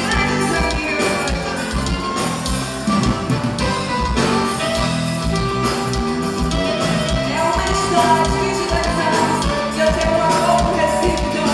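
Live forró music from a band, with a steady beat and a voice singing at times.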